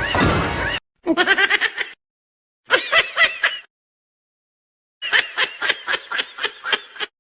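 Music cuts off, then three bouts of high-pitched cartoon laughter, quick repeated ha-ha pulses, separated by silent gaps.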